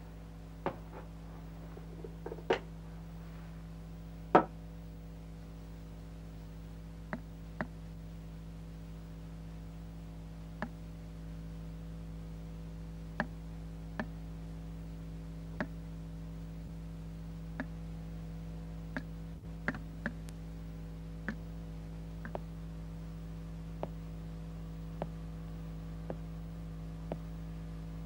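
A steady low electrical hum with sharp clicks and knocks scattered irregularly through it, about one a second, the loudest two a few seconds in.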